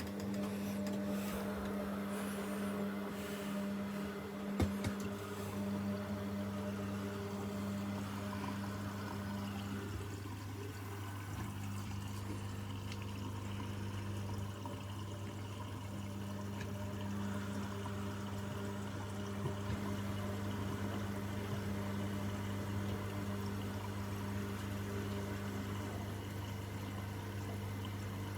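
Washing machine with water flowing through it over a steady low electrical hum, as of its pump or inlet valve running. A brief knock about four and a half seconds in.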